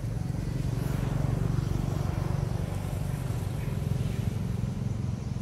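Steady low drone of an engine, growing a little louder about a second in.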